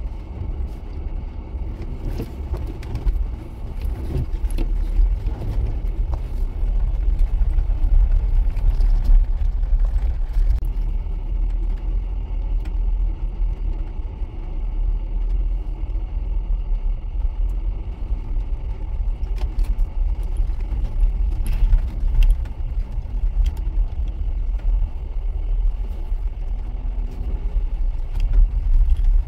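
Road noise inside a vehicle's cabin as it drives slowly over a rough gravel road: a steady low rumble of engine and tyres, with scattered clicks and rattles throughout.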